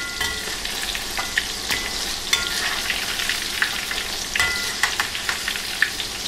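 Breaded chicken pieces deep-frying in hot soybean oil in a metal wok: a steady sizzle, with a wire skimmer clinking and scraping against the wok about seven times as the pieces are stirred, a few of the clinks ringing briefly.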